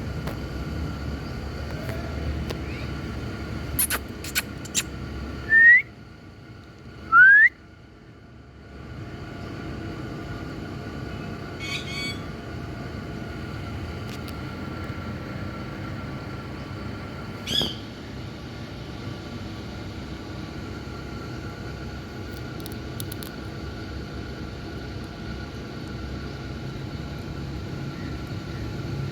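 Indian ringneck parakeet giving two loud, short rising whistles a second and a half apart, with a couple of fainter brief calls later, over a steady low background rumble.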